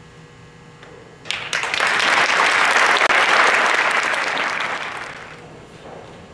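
Audience applauding: clapping breaks out suddenly about a second in, swells, then fades away shortly before the end.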